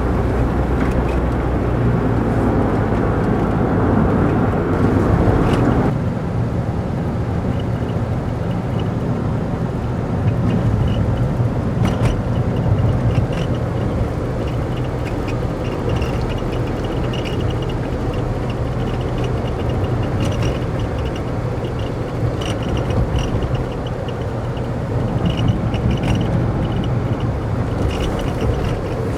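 Daihatsu Move (L175S) driving, heard from inside the cabin: steady road and engine noise with an intermittent high chirping buzz, like an insect, that comes and goes from about seven seconds in. The buzz comes from the dashboard rubbing against the windshield.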